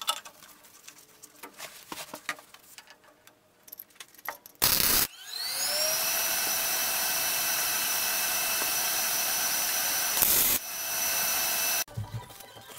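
Light clinks of steel exhaust tube pieces being handled. Then, after a short loud burst of noise, an electric power tool's motor spins up into a steady high whine, runs for about six seconds and cuts off suddenly.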